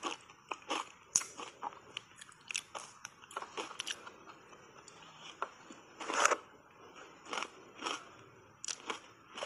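Close-miked crunching and chewing of shaved ice coated in matcha powder: a run of irregular crisp crunches, loudest a little after six seconds in.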